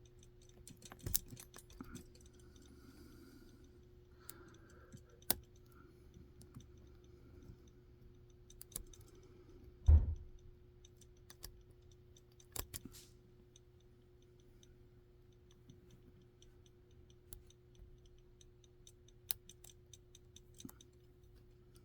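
Scattered small clicks and ticks of a lock pick and tension bar working inside an Abus 82/63 monoblock padlock, with one louder knock about ten seconds in. A faint steady hum runs underneath.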